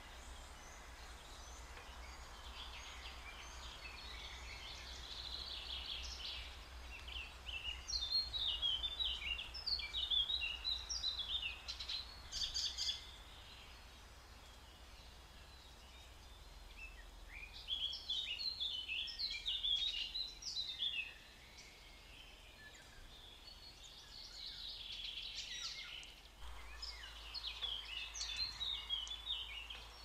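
Small songbirds singing in three long bouts of rapid, high chirping notes, with a faint steady low hum underneath.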